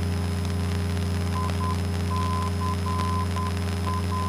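Cessna 172N's four-cylinder Lycoming engine and propeller droning steadily in flight, heard in the cockpit. From about a second and a half in, a high beeping tone comes and goes over it in short and long beeps.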